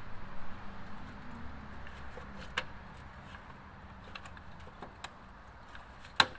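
Plastic parts of a pool cleaner clicking and knocking as they are handled and fitted together, with a few light clicks and a sharper knock near the end.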